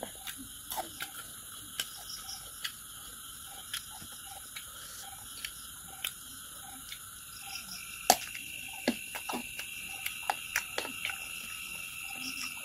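Eating with the hand off a banana leaf: scattered sharp clicks and smacks of chewing and fingers picking at the food, busier in the second half, the loudest about eight seconds in. A steady high-pitched hum and a faint call repeating at an even pace run behind them.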